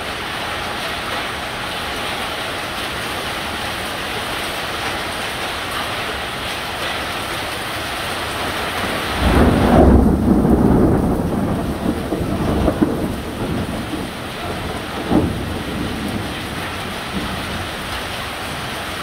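Heavy downpour hissing steadily, with a low rumble of thunder that swells about nine seconds in and rolls off over the next few seconds, followed by a couple of smaller rumbles.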